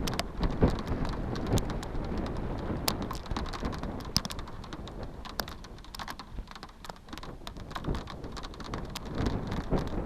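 Rain falling, with irregular drops ticking sharply on a hard surface close to the microphone. Under the drops, gusts of wind buffet the microphone, stronger at the start and again near the end.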